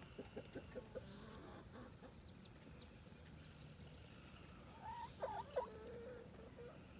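A hen clucking faintly: a quick run of short clucks at the start, then a longer call with a wavering pitch about five seconds in that trails off lower.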